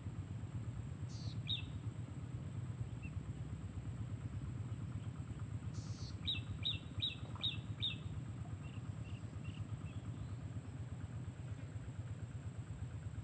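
A small bird calling: one brief call about a second in, then a quick run of five sharp chirps about six seconds in, trailing off into fainter chirps, over a steady low rumble.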